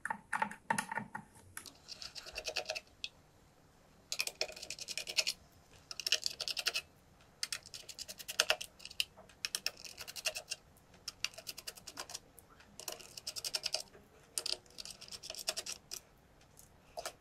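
A small screwdriver backing out the tiny screws that hold a multimeter's circuit board, heard as repeated bursts of fast, fine clicking and scratching, each about a second long, with short pauses between.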